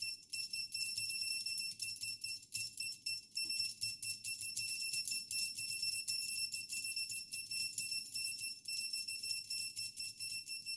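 Fast typing on a mechanical keyboard with Alps SKCM Salmon switches on an XW60 PCB whose buzzer gives a high-pitched beep on every key press. The beeps come many times a second, running together with the key clicks.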